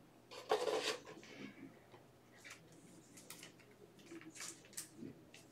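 Faint handling of trading cards at a table: a short rustle about half a second in, then scattered light clicks and taps.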